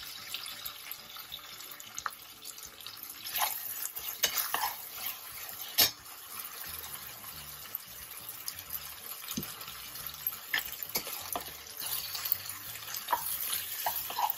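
Metal slotted spoon clicking and scraping against a nonstick kadai as vegetables in sauce are stirred, over a steady sizzle from the pan. One sharper knock comes about six seconds in.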